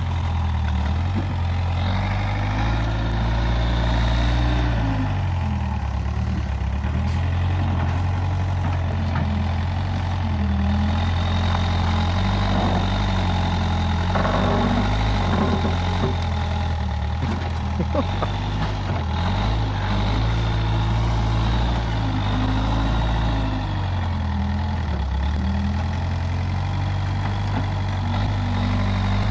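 Diesel engine of a Case 580G backhoe loader running, its speed dropping and rising again several times. A few clanks are heard around the middle.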